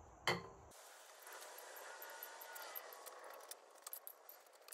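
Aerosol lubricant sprayed onto a Stoeger M3000 semi-auto shotgun's action: a sharp click, then a hiss of spray for about two seconds, followed by small metallic clicks as the action is handled.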